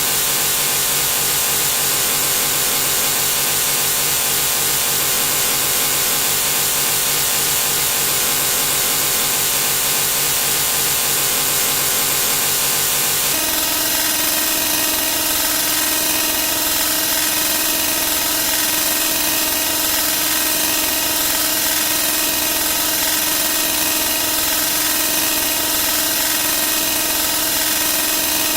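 Sound effects repeated so rapidly that they merge into one continuous buzzing drone. The sound changes character abruptly about 13 seconds in, likely where the count moves to a different effect.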